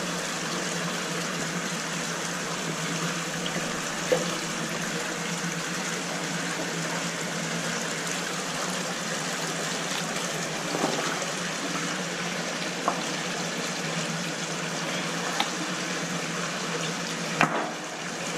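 Creek water running in a steady rush, with a few brief sharp knocks scattered through it.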